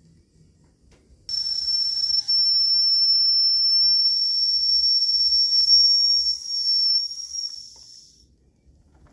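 Steam whistle on a spirit-fired Jean Schoenner gauge 1 live steam toy locomotive, blown in one long, steady, high-pitched blast with a hiss of steam. It starts suddenly and lasts about seven seconds before tailing off.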